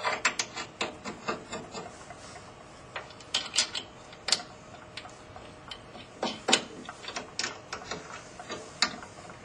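Mounting bolts being put back and tightened by hand into a metal bracket on an electric paper punch: irregular sharp metal clicks and taps, coming in small clusters.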